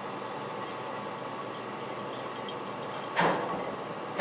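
Water bottle filling station running a steady stream of water into a bottle. Two louder sudden noises break in, about three seconds in and again at the end.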